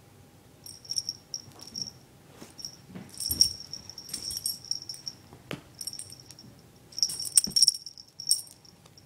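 A small bell jingling in quick bursts, with scuffs and knocks, as a kitten wrestles and pounces.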